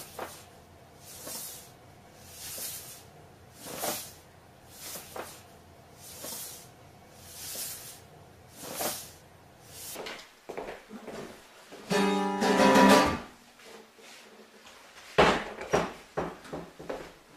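A paper bag crinkling in regular swells, about one every second and a quarter. Later comes a loud pitched sound lasting about a second, then a sharp strike and a few clicks from an acoustic guitar.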